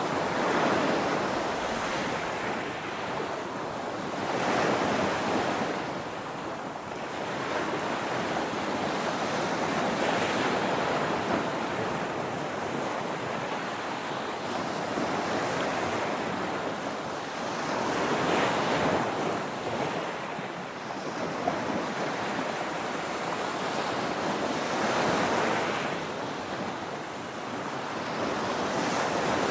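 Small ocean waves breaking and washing up a sandy beach, the surf swelling and easing every several seconds.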